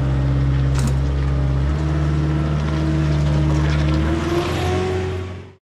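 A machine's engine running steadily at a low pitch, its note shifting about two seconds in, with one sharp knock about a second in. The sound cuts off suddenly just before the end.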